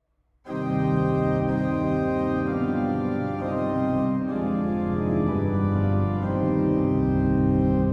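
A 1972 Graf AG church pipe organ playing sustained chords that change every second or two. It starts suddenly about half a second in.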